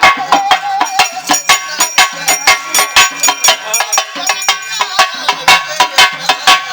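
Pambai drums beating a fast, even rhythm of about four to five strokes a second, with a wavering pitched line over the drums in the first second.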